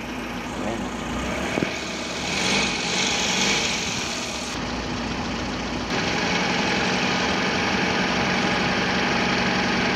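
Toyota 5K four-cylinder petrol engine idling steadily with its ignition timing freshly set at the distributor, which the mechanic calls good timing. It gets slightly louder about six seconds in.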